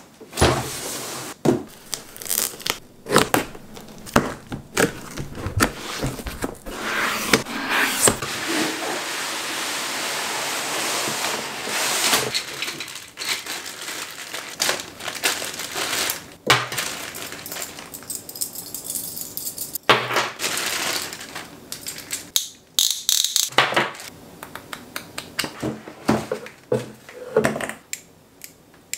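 Unpacking a cardboard box: cardboard and packing material scraping and rustling, with a long stretch of rustling around the middle, and many knocks and clicks as the box is set on a wooden table and parts are lifted out.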